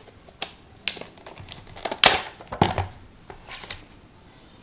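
Clear plastic clamshell packaging being pried open and handled, giving a string of sharp plastic clicks and crinkles, loudest about two seconds in.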